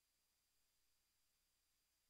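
Near silence: only a faint, steady electronic hiss with a faint high tone.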